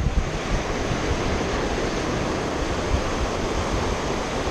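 Ocean surf washing into the shallows, a steady rushing noise, with wind rumbling on the microphone.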